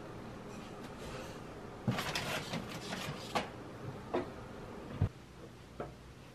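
Household handling sounds: several short knocks and clatters of objects being moved or set down, the loudest a cluster about two seconds in and a sharp knock about five seconds in.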